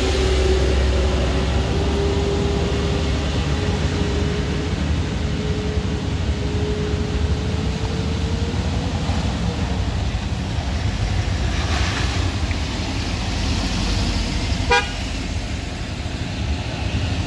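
Vehicle engines running in road traffic, a low rumble with a steady whine that slowly rises and fades out about ten seconds in. Near the end comes one short vehicle horn toot.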